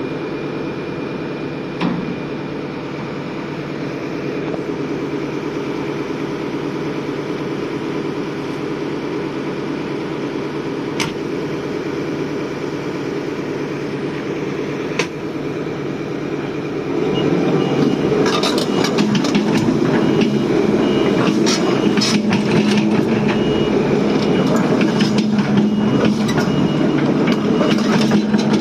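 Volvo excavator's diesel engine running steadily. About two-thirds of the way in it gets louder as the machine starts working, with repeated clanks and knocks and an alarm beeping at a regular rate, typical of a travel alarm.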